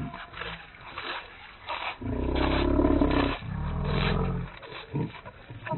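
Geese eating lettuce, recorded in slow motion so that everything is pitched far down. Their calls come out as two long, deep, roar-like sounds about two seconds in. Slowed, drawn-out crunching and pecking clicks come before and after them.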